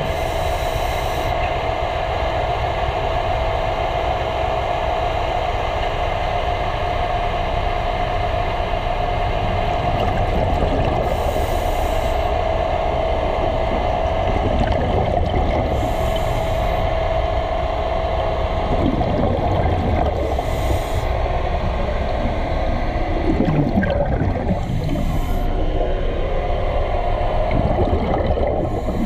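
Underwater noise picked up by a camera at a ship's propeller: a steady rush and hum with a constant mid-pitched tone, and a short high hiss that comes back about every four to five seconds.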